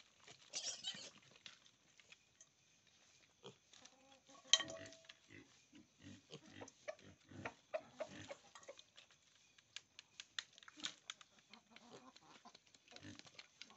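Piglets grunting and snuffling in short, faint pulses as they root with their snouts among stones, with scattered light clicks. A brief high squeal comes about a second in.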